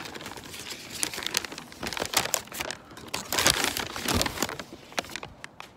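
Irregular rustling and crackling handling noise from a phone being carried and moved about, its microphone rubbing and bumping against clothing and the hand, busiest in the middle and dying away near the end.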